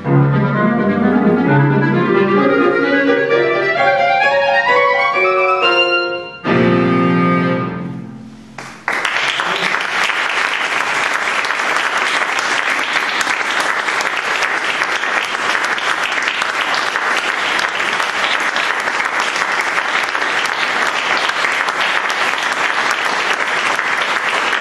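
Clarinet and grand piano playing the closing bars: a rising run of notes, a short break, then a final chord that dies away. About nine seconds in, audience applause starts suddenly and keeps going steadily.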